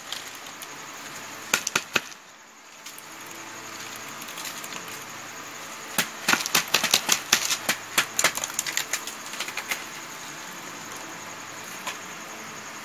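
Dry seeds of a dried ridge gourd dropping and rattling onto a woven plastic sack as the gourd is handled. There are a few sharp clicks near the start, then a quick run of clicks about six seconds in that lasts some three seconds, over a steady low hiss.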